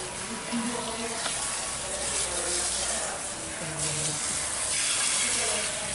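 Water hissing from a handheld salon shampoo-basin sprayer as it rinses hair and splashes into the basin, swelling and easing as the spray moves.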